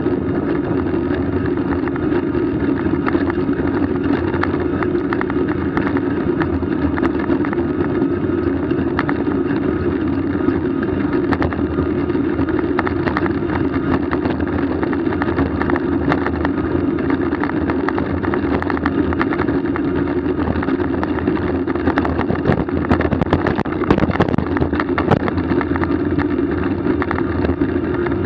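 Steady running noise of a moving vehicle, a continuous hum with frequent small clicks and rattles that grow busier about 22 to 25 seconds in.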